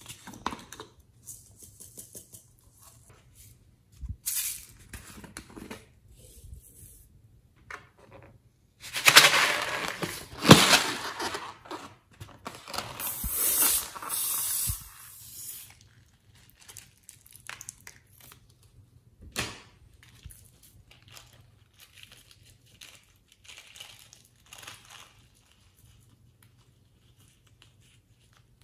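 Crinkling and tearing handling noises with scattered taps: scissors cut into the neck of a clay-filled rubber balloon, and the noise is loudest for several seconds in the middle.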